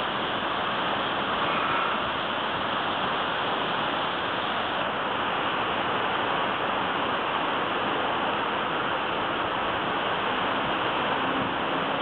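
Steady, even rush of high wind and rain in a storm.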